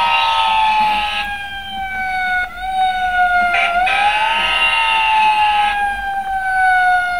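Toy fire truck playing its recorded electronic siren: a wailing tone that rises quickly and then falls slowly, twice, with a burst of rushing noise over each rise.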